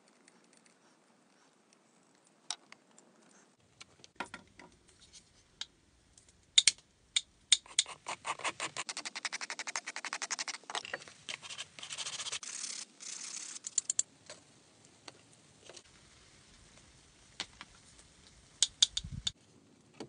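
Knife shaving and scraping a thin piece of wood braced against a log: scattered sharp cuts and clicks, then about six seconds of quick, repeated scraping strokes in the middle. Near the end a few sharp clicks and a short low thump.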